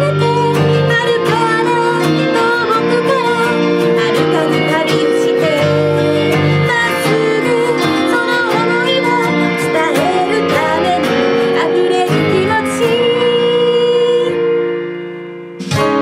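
A woman singing a melody to her own Gibson J-45 acoustic guitar. Near the end the playing dies away and rings out, and sound starts again just before the end.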